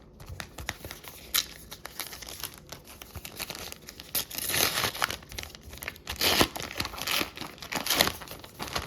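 Crinkling and tearing of a trading-card pack wrapper being torn open by hand, in irregular crackly bursts that swell several times, the loudest a little past the halfway point and near the end.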